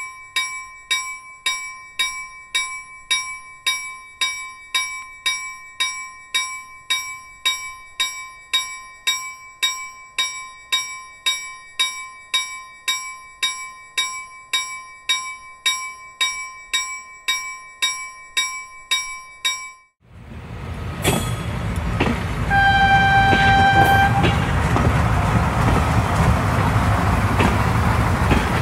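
A bell rings steadily, struck about one and a half times a second. About twenty seconds in it cuts off, and a train runs in with a loud, even rolling noise, sounding one horn blast of about a second and a half.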